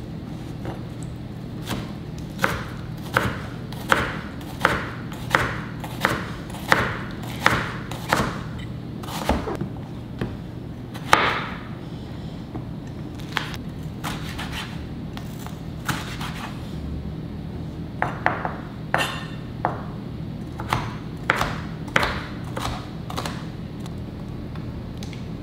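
Chef's knife chopping onion and then green pepper on a hard cutting board. There is a steady run of sharp knocks about one and a half a second, a short pause, then a looser series of knocks.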